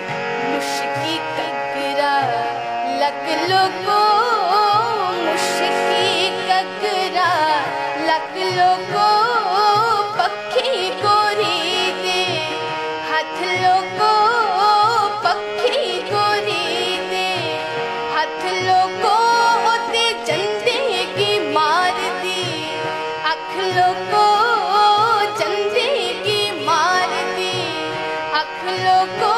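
A woman singing a melodic song with ornamented, wavering vocal lines, accompanied by a harmonium's sustained chords and a steady rhythmic backing.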